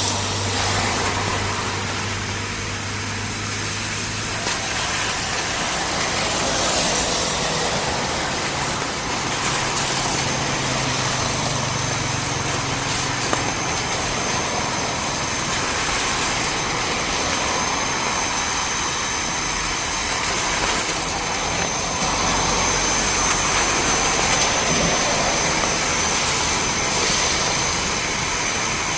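Beechcraft King Air C90B's twin Pratt & Whitney PT6A turboprop engines running steadily. A high, steady whine comes in about a third of the way through and holds.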